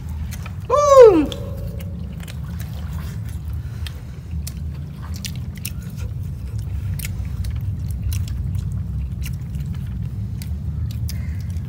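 Chewing, with scattered wet clicks and lip smacks, as goat meat is eaten by hand, over a steady low rumble. About a second in comes a short, loud voiced cry that rises briefly and then falls in pitch.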